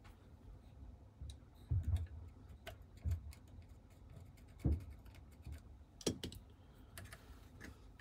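Light clicks and taps of a small metal pick and brush against an AR-15 upper receiver as carbon is scraped from the chamber area, with a few heavier knocks, the loudest near the middle.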